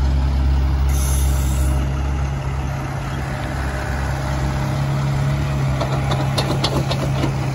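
Heavy diesel engines running as a tri-axle dump truck pulls away beside a working excavator, with a short hiss about a second in like an air brake releasing. A few sharp metallic clanks come near the end.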